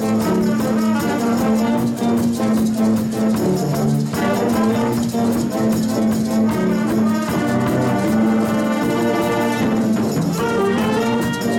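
Student jazz band playing, with the saxophone section and trumpets sounding together over a held low note.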